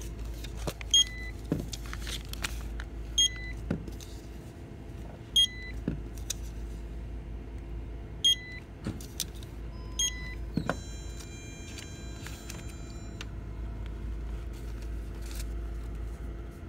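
Checkout barcode scanner beeping five times, about every two seconds, as manufacturer coupons are scanned at a store register, over a steady low hum. A cluster of high electronic tones follows a little past the middle.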